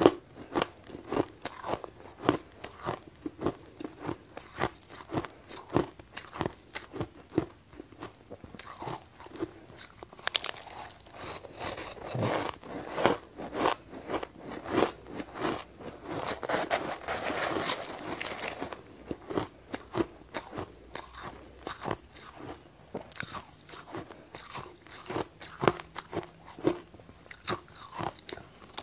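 Close-miked crunching and chewing of ice in the mouth: dense, irregular crunches, several a second, from mouthfuls of ice eaten by the spoonful.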